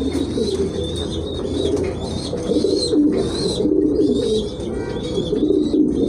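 Several domestic pigeons cooing at once, their coos overlapping without a break, with thin high chirping above them.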